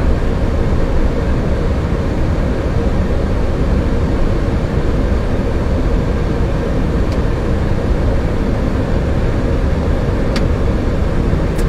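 Steady cockpit noise of a jet airliner taxiing slowly to the gate on running engines: an even, loud rumble with a light click near the end.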